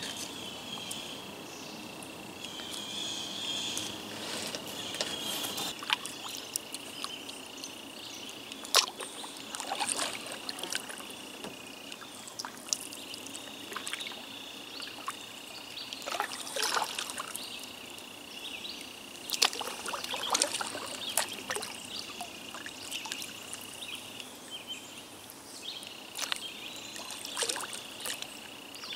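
Kayak paddling: water dripping and splashing off the paddle blades with scattered sharp knocks, over a steady high insect drone that breaks off briefly a few times.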